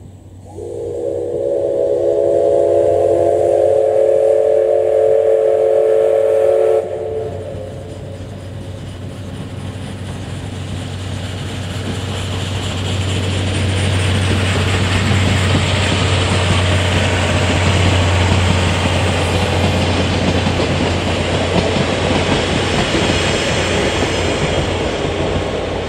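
Steam locomotive C11 207's whistle sounding one long chord-like blast of about six seconds that cuts off sharply, then the train running past: wheels on rails and locomotive noise building for about ten seconds and staying loud.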